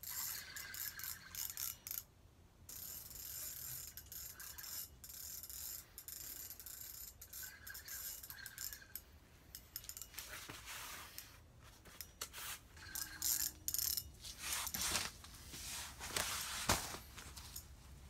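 Spinning fishing reel ratcheting and clicking in irregular runs as a sturgeon is fought and reeled in.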